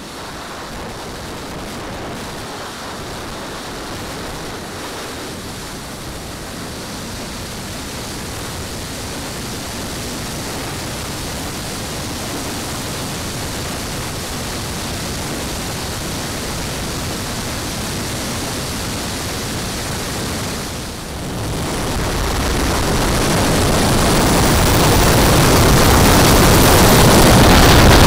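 Steady rush of airflow mixed with the model's four gas turbine engines, heard through a camera mounted on the wing of a 1/5-scale Avro Vulcan in flight. The noise dips briefly about two-thirds of the way through, then grows steadily louder.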